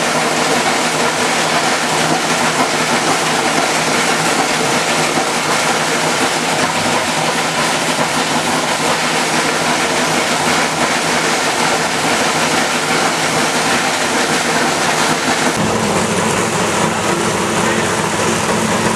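Chevrolet Corvette C6R GT1's 7.0-litre V8 race engine running steadily at idle, loud. Near the end the sound changes to a deeper steady hum.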